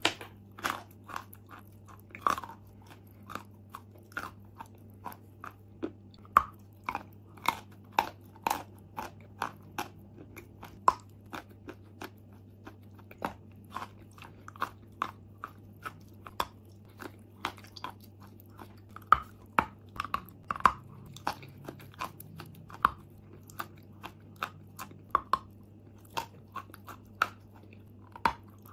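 Pieces of white chalk with a wet brown coating being bitten and chewed close to the microphone: irregular sharp crunches, about one or two a second.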